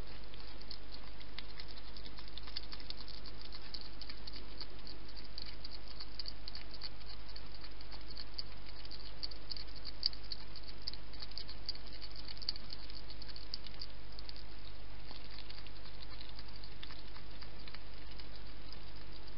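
Wild hedgehog at a feeding dish, its mouth making a rapid run of crisp smacking and crunching clicks that is busiest in the middle, over a steady low hum.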